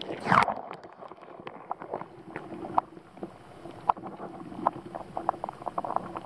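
Muffled underwater sound picked up by a submerged camera in river water: a brief rushing surge about a third of a second in, then a faint steady hum with scattered sharp clicks and crackles.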